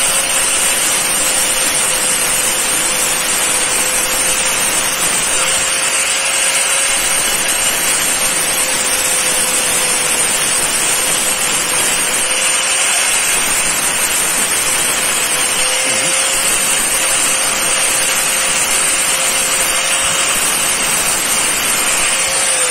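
Electric angle grinder with a flap sanding disc running at steady speed with a constant whine, its disc grinding down the melted-plastic weld bead on a clear plastic fridge door shelf to give it its final finish.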